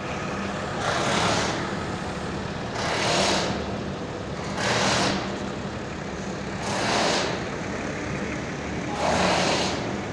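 Heavy machinery running with a steady low hum, overlaid by a loud rushing hiss of air that repeats evenly about every two seconds, five times.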